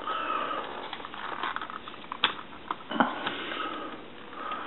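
Handling noise as a Radio Shack Golden Arrow RC buggy is lifted and turned over on a wooden table, with two light plastic knocks about halfway through.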